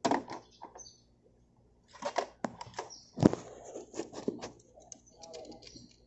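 Irregular clicks and clinks of a screwdriver working the terminal bolts of a scooter's 12-volt battery in its plastic under-seat compartment, with one sharper, louder knock a little after three seconds in.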